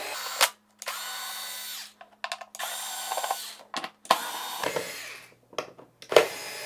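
Cordless electric screwdriver backing screws out of a plastic module housing: several runs of motor whine about a second each, with short gaps and small clicks between them.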